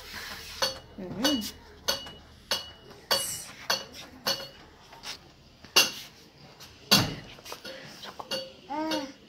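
Metal dishes and utensils clinking and clattering off and on, a dozen or so sharp knocks, some with a short ringing tone. A small child's short vocal sounds come about a second in and again near the end.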